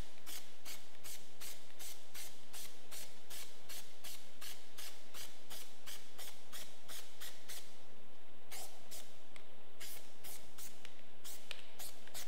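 Aerosol can of Plasti Dip Glow being worked in quick, even strokes, about three a second, with a pause of about a second partway through before the strokes resume.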